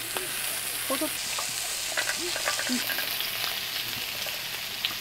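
Pork belly sizzling steadily on a round griddle, with scattered small clicks of metal tongs against the pan.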